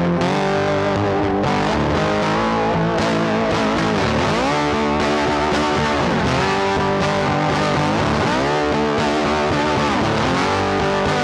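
Background instrumental music led by a distorted electric guitar, its notes bending down and back up several times.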